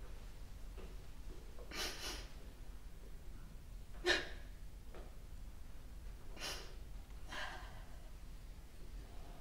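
A woman's breathy sobs and sniffs, heard as short catching breaths: one a little under two seconds in, a sharper one about four seconds in, and two more between six and eight seconds.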